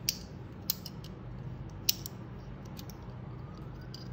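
Metal binder clip being handled, its wire handles clicking against the clip: three sharp clicks in the first two seconds, then a few lighter ticks.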